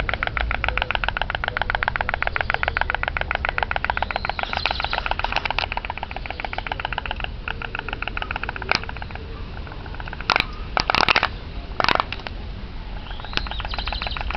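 Homemade pop-pop (pot pot) toy boat engine running: a fast, regular popping that weakens after the first half. A few loud sharp clicks come about ten to twelve seconds in.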